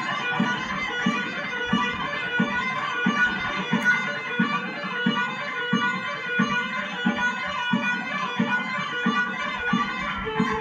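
Electric guitar playing fast picked runs of single notes, over a steady low beat about every two-thirds of a second.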